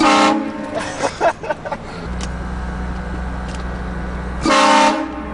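Train horn sounding two short blasts of about half a second each, one at the start and another about four and a half seconds later. A vehicle engine hums steadily in between.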